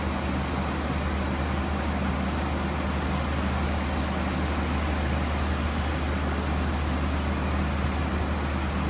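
Steady airliner cabin noise in flight: an even rush of air over a constant low engine drone.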